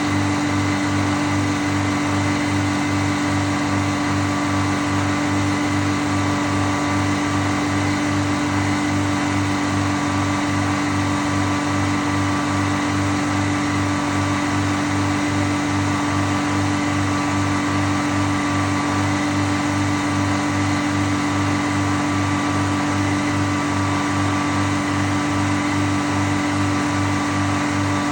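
Sawmill machinery running steadily at an even pitch, with a low pulse about twice a second.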